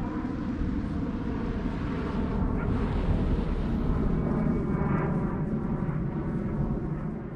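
Wind buffeting the microphone in a steady low rumble, with the faint drone of a distant propeller engine that swells slightly midway.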